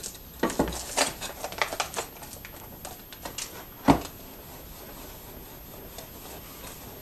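Mylar bag crinkling and rubbing against a wooden clamp board as it is handled and pressed along the board's edge, with scattered rustles and scrapes in the first two seconds. A single sharp knock comes about four seconds in, followed by a faint steady rub.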